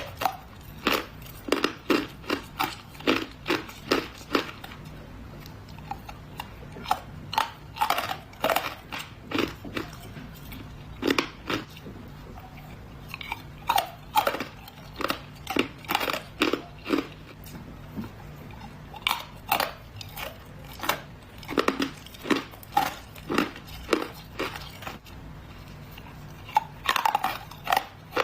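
Ice cubes being bitten and crunched between the teeth, in irregular runs of sharp crunches broken by short pauses.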